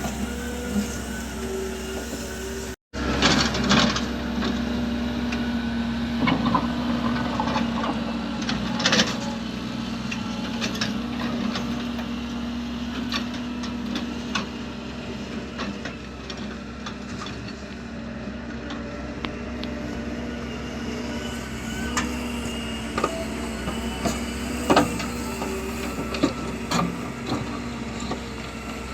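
Heavy vehicle engine running steadily, with scattered clanks and knocks over it; the sound drops out briefly about three seconds in.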